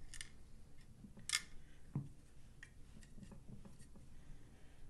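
A few light clicks and rubs from hands handling a rifle while a bore snake is pulled through its barrel, the sharpest click about a second and a half in.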